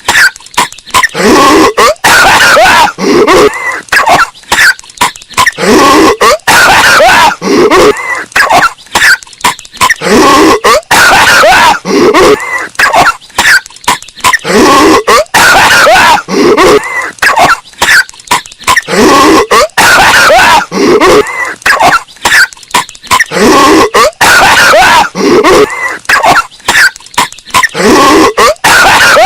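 A cartoon character's voiced coughing fit, one short clip looped over and over, about once every two seconds. It is bass-boosted so hard that it is loud and distorted.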